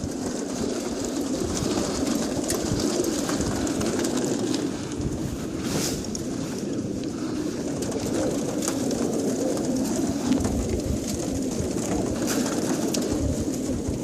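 A crowd of young racing pigeons in a training crate cooing together in a continuous, overlapping murmur.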